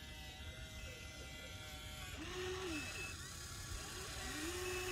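HUINA 1593 RC excavator's small electric motors and gearboxes whining as the model slews and works its boom. A faint steady whine, then from about two seconds in two short whines that each rise in pitch, hold and drop away.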